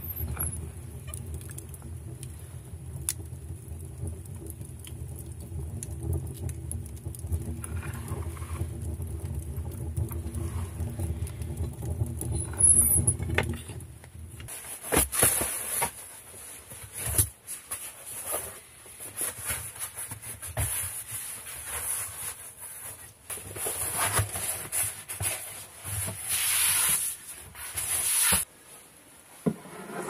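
A freshly lit wood stove drawing hard, a steady low rumble close to its fire door, which stops about halfway through. Then a foam camping mat is unfolded and handled, rustling and crackling, with scattered knocks.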